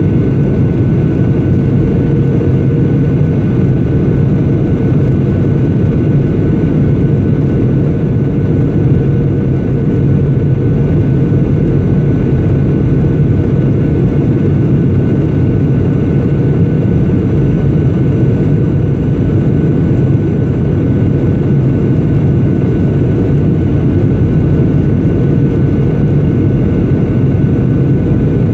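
Jet airliner cabin noise beside a wing-mounted turbofan engine: a loud, steady drone of engine and airflow, with a faint high whine held at one pitch.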